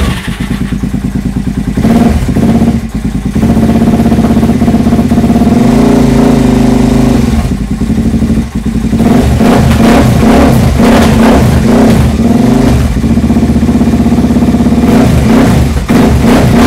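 Suzuki DR-Z400SM single-cylinder four-stroke engine running through its stainless FMF PowerBomb header, idling with repeated throttle blips that raise and drop the revs. It is a test run of the freshly refitted exhaust.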